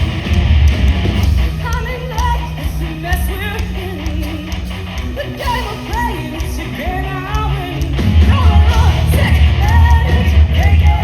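Hard rock band playing live: distorted electric guitars, bass and drums under a singing voice. The band gets louder about eight seconds in.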